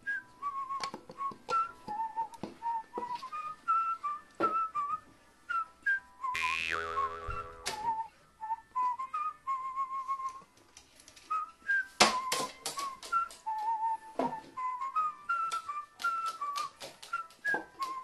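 Background music: a light, bouncy whistled melody, with scattered short clicks and taps. About six and a half seconds in, a falling pitched sound effect glides down.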